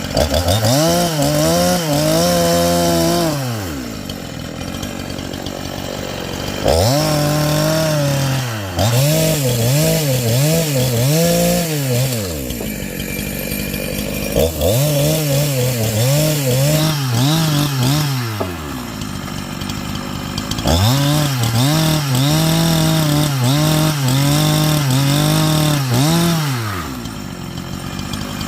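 Two-stroke chainsaw cutting into a log: the engine revs up to full throttle, its pitch dipping again and again as it loads in the cut, and drops back to idle between cuts several times.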